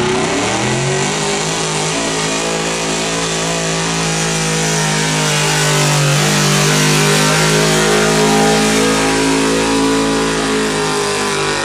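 Chevrolet square-body pickup's engine revving up over the first second or so, then held at high revs under full load as the truck drags the pulling sled down the track.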